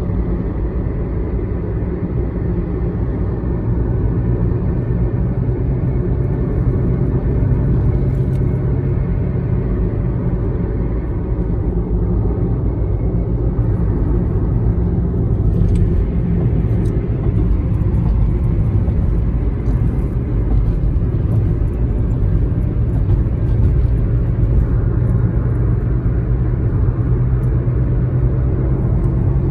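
Steady road noise inside the cabin of a car driving at highway speed: a low rumble of tyres and engine.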